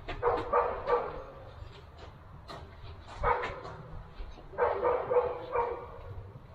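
A dog barking in short bursts, three bouts of barks.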